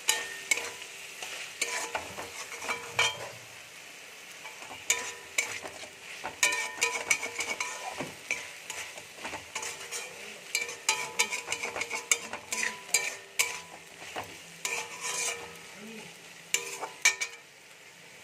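Metal spatula scraping and knocking against a metal kadai as spiced potato cubes are stir-fried over a steady sizzle of hot oil: the masala being 'koshano', cooked down with turmeric and a ginger–cumin–chilli paste. The scraping stops shortly before the end, leaving the sizzle.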